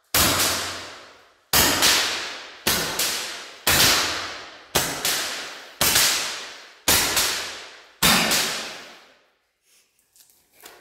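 A hand-held Roman candle firing eight shots about a second apart, each a sharp pop followed by a long echoing decay in the empty building; the shots stop about eight seconds in.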